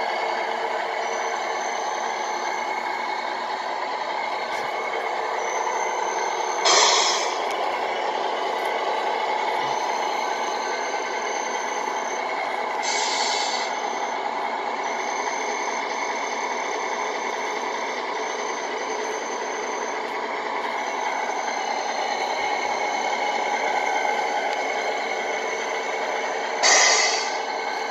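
Simulated truck diesel engine running steadily from the Tamiya multi-function sound units in RC Scania and Mercedes model trucks, played through their small speakers. Three short air-brake hisses cut in, about seven, thirteen and twenty-seven seconds in.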